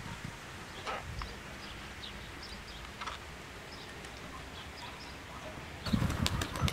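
Wind on the microphone with faint, scattered chirps of small birds. About six seconds in a stronger gust buffets the microphone with low rumbling and crackle.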